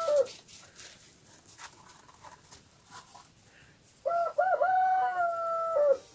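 A rooster crowing: the tail of one crow right at the start, then a full cock-a-doodle-doo about four seconds in, two short notes and a long held note that drops at the end.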